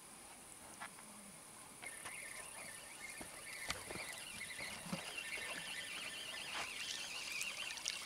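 Faint night-time chorus of crickets, a steady high ringing, joined about two seconds in by a warbling, trilling call. A few soft knocks along the way.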